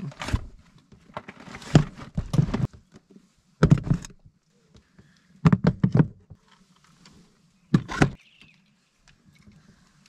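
Gear being loaded into an inflatable dinghy: bags, a hard plastic case and fishing rods set down, giving clusters of thuds and knocks about every second or two, five in all.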